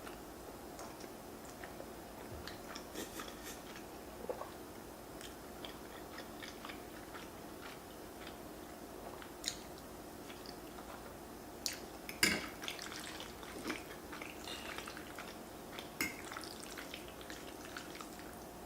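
Close-miked chewing of king crab fettuccine Alfredo, with scattered short clicks and a louder clatter about twelve seconds in, over a faint steady hum.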